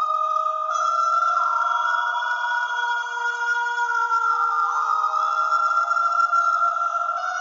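Sustained layered tones, like a synthesized choir or vocal pad, holding several notes at once. They shift to new pitches in sudden steps every second or two.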